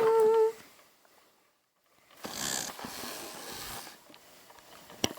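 A character voice trails off in a held note, then cuts to silence. About two seconds in comes a scratchy rustle and scrape lasting nearly two seconds as plastic toys are moved by hand, ending with a faint click.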